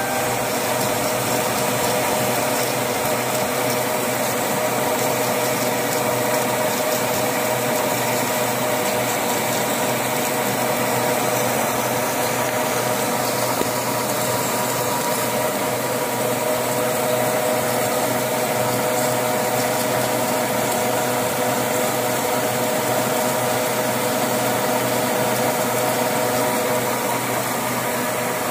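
Metal lathe running steadily while turning a steel shaft, the cutting tool taking a cut with cutting oil dripping on: an even machine hum with a few steady tones from the motor and headstock gearing over a constant hiss.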